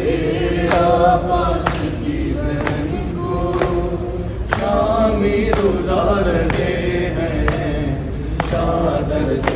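A noha (Shia lament) sung in unison by a group of male voices, with a sharp hand slap on the chest (matam) about once a second keeping the beat.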